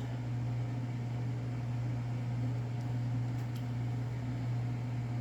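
A steady low hum with faint room noise, and a few faint light ticks about three seconds in.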